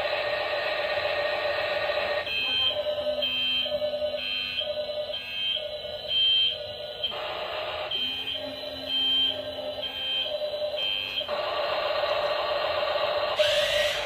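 Toy remote-control excavator's built-in sound effects played through its small speaker: a buzzing engine effect, broken in two long stretches by a warning beep repeating about three times every two seconds over a low hum.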